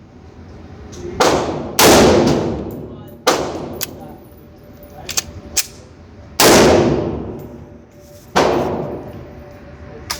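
CZ P10C 9mm pistol fired five times at uneven intervals, each shot followed by a long echoing tail, with a few fainter sharp cracks in between.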